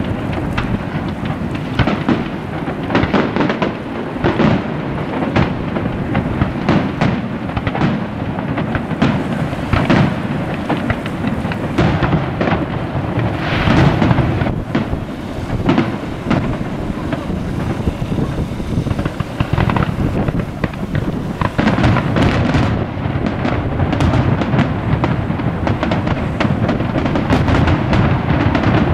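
Aerial fireworks shells launching and bursting in rapid succession: a continuous run of booms and crackles with no real pause, the bursts coming thicker in the last several seconds.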